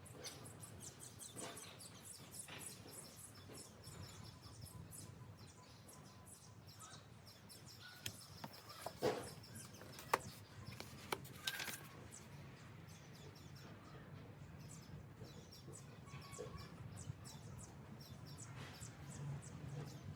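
Quiet handling noises: scattered light clicks and taps, with a few sharper knocks about eight to twelve seconds in, over faint background chirps.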